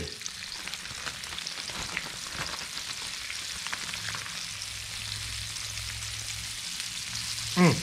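Spot prawns deep-frying in hot grease: a steady sizzle full of fine crackling.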